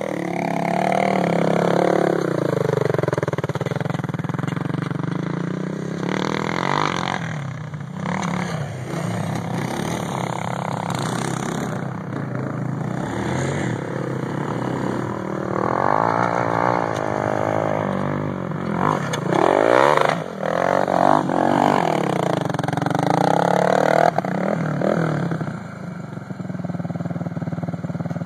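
Quad ATV engine revving up and down over and over as it is ridden hard, the pitch climbing and dropping many times.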